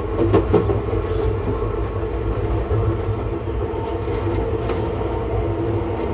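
Class 334 electric train heard at the gangway while running: a steady low rumble of wheels and running gear with a steady traction-motor hum over it. A few light clicks about half a second in.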